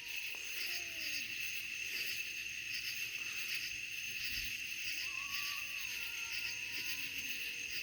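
Steady night chorus of crickets and other insects, a continuous high trilling that pulses gently about once a second. A few faint, thin falling tones sound underneath early on and again about five seconds in.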